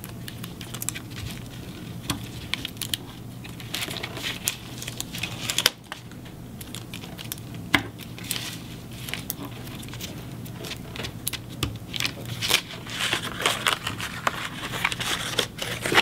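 Hands working with cardstock, wires and brass paper fasteners: scattered small clicks, taps and paper rustling and crinkling, busier in the second half, over a low steady hum.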